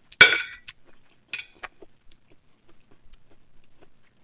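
Cutlery clinking against a plate while eating: one sharp clink with a brief ring just after the start, then a fainter clink about a second later.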